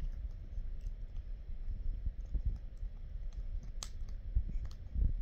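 Two chihuahuas scuffling on a fleece bed and blanket: soft low thumps and rustling from their paws and bodies, with faint clicks and one sharp click about four seconds in.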